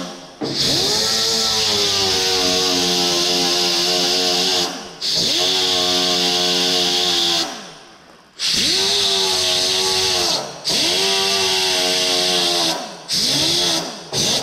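A power tool fitted with a clean-and-strip wheel, stripping broken paint edges off a steel door panel. It is run in about six short bursts, each spinning up and then winding down, with a high abrasive hiss while the wheel is on the paint.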